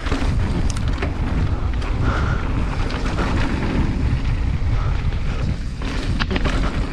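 Wind buffeting a helmet-mounted action camera's microphone over the steady rumble and rattle of a mountain bike rolling down a dirt trail, with a few sharp knocks about six seconds in.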